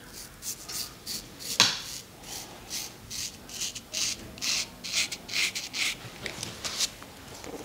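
Straight razor scraping shaving lather and stubble off a scalp in quick short strokes, about two or three a second, one of them sharper about a second and a half in.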